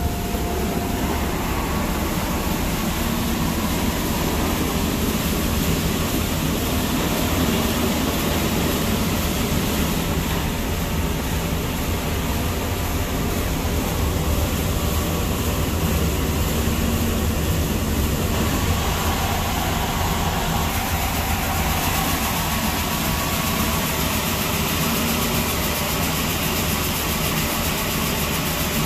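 Coin-operated rice milling machine running steadily: a low motor hum under a constant rushing noise as the grain is polished and poured down the outlet chute.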